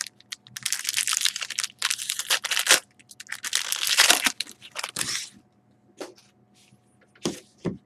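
Hockey card pack being opened: the wrapper crinkling and tearing and the cards rustling as they are pulled out and handled, in dense bursts for about five seconds, then a few light taps near the end.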